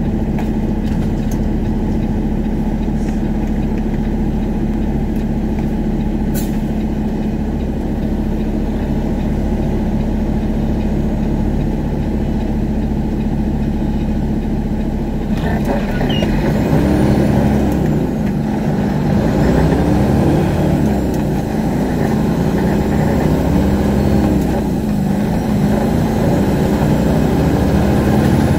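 A heavy truck's diesel engine running, heard inside the cab. It holds a steady note for about the first half. From about halfway its pitch rises and falls again and again as the 18-speed manual transmission is shifted through the gears.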